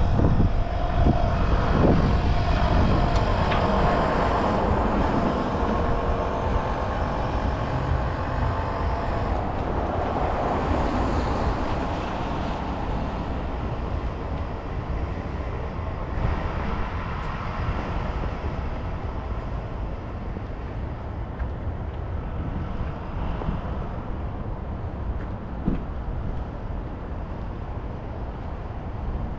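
City street traffic: a passing vehicle's engine and tyre rumble, loudest at the start and slowly fading away.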